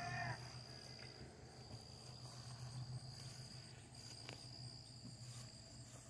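Faint, steady, high-pitched insect chirring, broken briefly twice, over a low steady hum. A rooster's crow tails off right at the start, and a single faint click comes a little past four seconds in.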